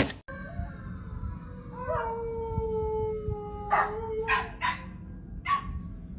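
Dog howling: one long howl that slowly falls in pitch for about four seconds, joined partway through by a second, higher voice, then several short yips near the end.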